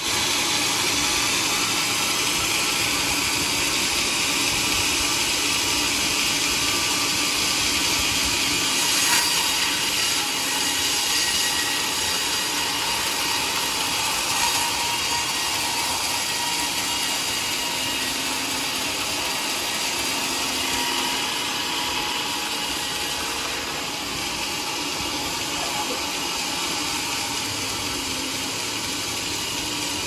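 Vertical band sawmill cutting lengthwise through a teak log: the blade and the mill's machinery make a steady loud hiss and whine, with brief louder moments at about 9 and 14 seconds in.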